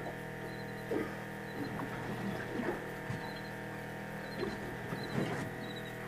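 Shimano Tranx baitcasting reel being wound in short spells during a fight with a hooked fish, each spell a brief mechanical whir, over a steady hum.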